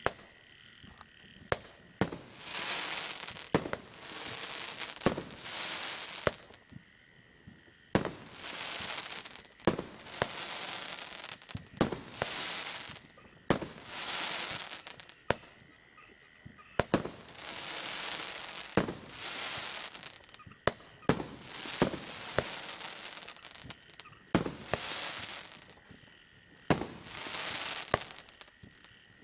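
A 19-shot golden chrysanthemum firework cake firing its shots one after another, a sharp report every second or two, many followed by about a second of hissing from the bursting stars.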